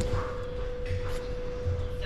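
Steady electric machine hum holding one pitch, with a low rumble underneath.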